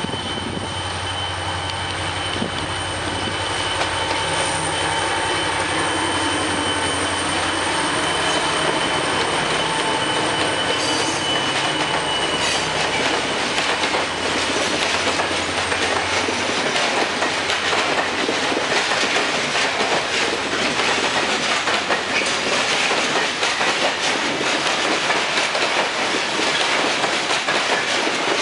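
A Soviet-built M62 ('Gagarin') diesel locomotive approaches and passes with a steady low engine drone and thin high wheel squeal on the curve. From about halfway through, a long train of loaded open coal wagons rolls by, louder, with continuous wheel clatter and squeal.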